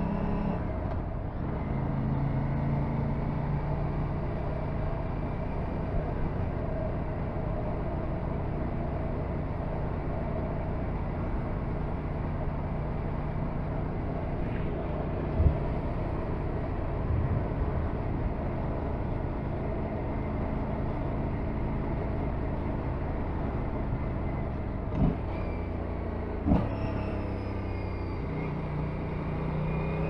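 Aprilia RS 457's parallel-twin engine running at steady road speed under broad wind noise, its note shifting near the start and again near the end. A few short sharp knocks come through about halfway and twice more later.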